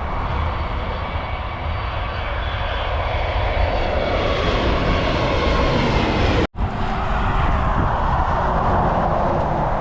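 Airplane engines running loud as a plane passes close by, a steady rushing noise with a deep rumble. The sound drops out for an instant about six and a half seconds in, then carries on.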